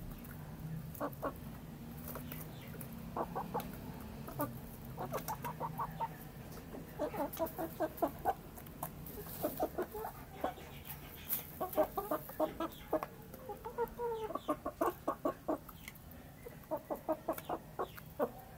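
Chickens clucking while feeding: repeated runs of quick, short clucks, busier in the second half, with light taps of beaks pecking in a metal bowl.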